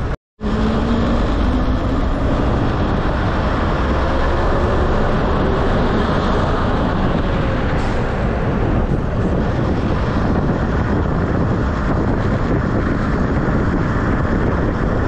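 A train running: a steady rumble and rush of noise, with a faint whine that shifts in pitch over the first several seconds.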